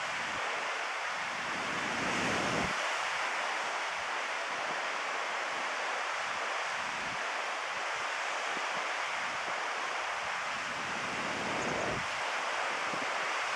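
Steady wash of ocean surf breaking on the rocks below, with wind buffeting the microphone in low gusts about two seconds in and again near the end.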